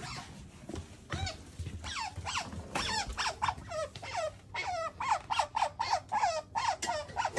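Asian small-clawed otter calling in a rapid run of high-pitched squeaky chirps, each dropping in pitch, about three a second. The calls begin about a second in.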